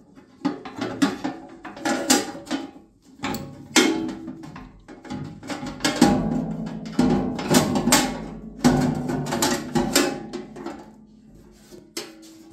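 Sheet-metal control cover and joystick levers of a mini excavator clanking and rattling as the levers are pushed aside and the cover is worked up and lifted off: a run of irregular metal knocks and clatters that thins out near the end.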